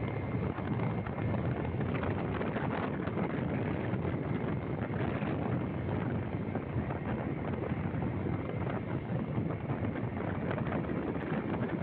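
Wind rushing over the microphone of a moving vehicle on the road, a steady roar with no clear engine note.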